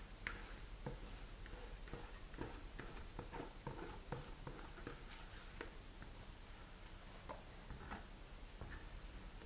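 Silicone spatula scraping and tapping against a plastic bowl as stiff meringue is scraped out onto chocolate batter: faint, irregular soft clicks and scrapes.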